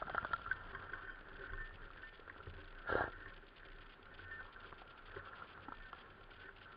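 Quiet rustling and scattered small clicks of movement through woodland undergrowth, with one brief louder rustle about three seconds in.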